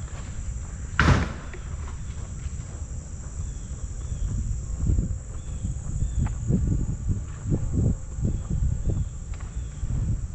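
Summer outdoor ambience while walking: a steady high-pitched insect drone with faint repeated chirps, over a low rumble of wind on the microphone and footsteps. A single sharp knock about a second in.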